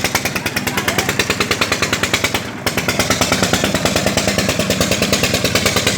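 Carrot washing machine running: a loud, steady, rapid knocking of about ten beats a second, with a brief dip in level about two and a half seconds in.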